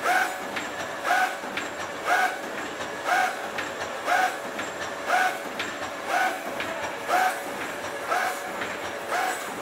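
Angeli ARE 2.6 welded-wire mesh machine running in production. Its welding cycle repeats at an even pace of about one stroke a second, each stroke a short clank with a brief ringing tone, over steady machine noise between strokes.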